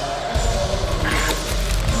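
Background music with a steady low bass line.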